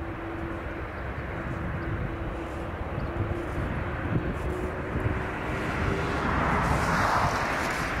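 Jet engines of a widebody twin-engine airliner at takeoff power during the takeoff roll, a steady rushing roar with a faint steady hum, swelling louder near the end.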